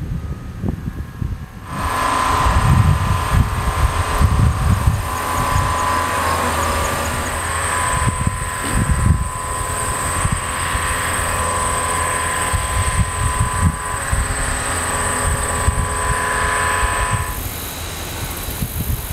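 Wind gusting on the microphone, with a steady machine whine from a running engine or motor that starts about two seconds in and cuts off near the end.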